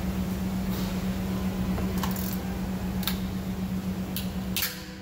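Light metallic clinks of tools and engine parts being handled during engine disassembly, about five of them, over a steady low hum that mostly cuts out near the end.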